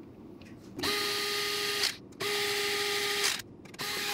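Small electric screwdriver running in three short bursts of about a second each, a steady whine driving M3x20 screws home.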